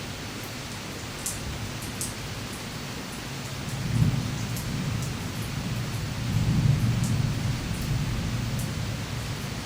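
Steady rain with scattered close drips, and a low roll of thunder that builds about three and a half seconds in, swells twice, then slowly fades near the end.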